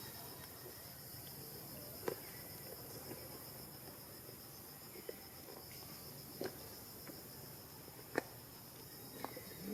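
Faint, steady, high-pitched insect chirring that pulses evenly, with a few short sharp clicks about two, six and a half and eight seconds in.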